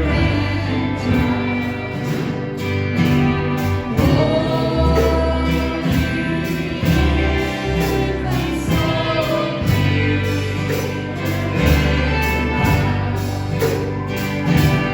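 Gospel choir singing with instrumental backing, sustained bass notes and a steady beat.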